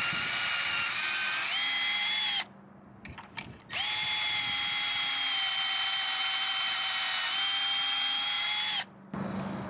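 Cordless drill spinning a stepped pocket-hole bit with a stop collar through a Kreg jig's guide into half-inch plywood, with a steady whine. It runs twice: the first run stops about two and a half seconds in, and the second starts about a second later and runs until near the end.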